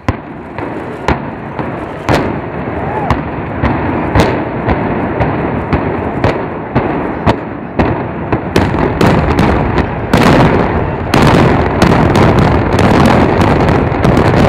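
Demolition charges of dynamite on a power plant's steel beams detonating in sequence during a building implosion. Sharp bangs come about one a second at first, then in fast succession from around eight seconds in, merging into continuous loud noise.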